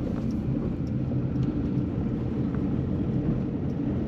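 Campervan driving along a road, heard from inside the cab: a steady low drone of engine and road noise.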